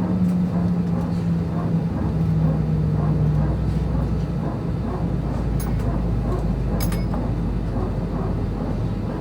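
Airbus A320 cabin noise at the gate. A low drone sinks in pitch and fades out in the first few seconds, while a deeper steady hum carries on under passenger chatter. Two sharp clicks sound about halfway through.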